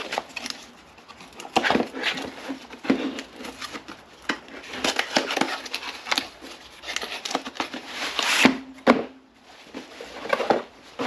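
Cardboard box being opened and a fabric grill cover pulled out and unfolded: irregular rustling, scraping and tapping of cardboard and cloth, with scattered sharp clicks.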